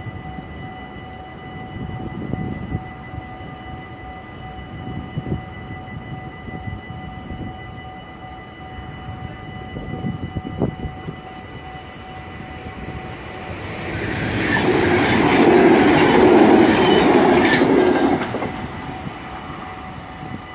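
Level crossing warning bell ringing steadily with the barriers down. About two-thirds of the way through, a passing train grows loud over a few seconds and then drops away quickly.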